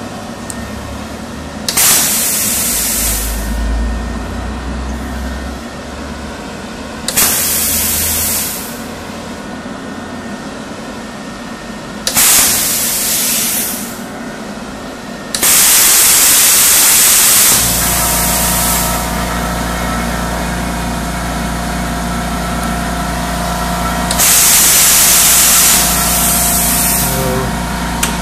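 Compressed air hissing out of a plasma cutter torch in five bursts of a second or two each, over a lower steady hiss of flowing air. About 17 seconds in, an oil-less air compressor (California Air Tools 4620A) starts and runs with a steady hum under the air, refilling as the air is drawn down.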